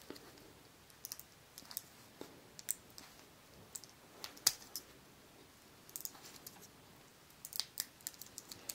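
Irregular small clicks and snaps of a Beyblade's parts being worked by hand while trying to push a stuck top piece out, the loudest click about halfway through. The part is still stuck and does not come free.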